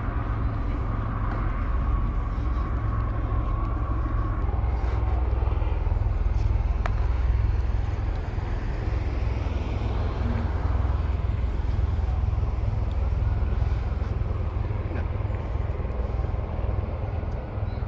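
Outdoor road-traffic ambience: a steady low rumble of passing cars.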